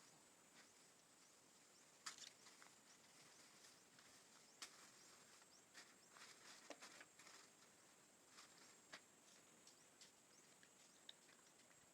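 Near silence with faint scattered clicks and rustles of packaging being handled, the clearest about two seconds in and again just before five seconds, over a steady faint hiss.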